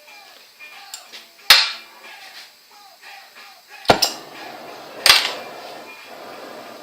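Hammer blows on metal, three hard strikes about a second to two apart, the middle one with a quick double hit, each ringing briefly: a bent steel bar being hammered straight.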